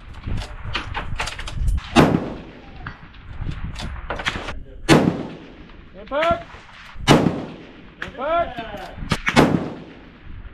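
Four shots from a scoped precision rifle, each a sharp crack with a short echoing tail, about two to three seconds apart, with fainter reports in between.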